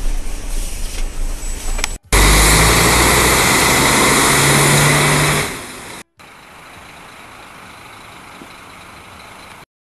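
Diesel engine of a Modasa Zeus double-decker coach idling, heard from behind near the rear engine grille: a loud, steady hiss over a low engine hum. The sound cuts in abruptly about two seconds in, fades out a little past the middle, and gives way to a much quieter steady background.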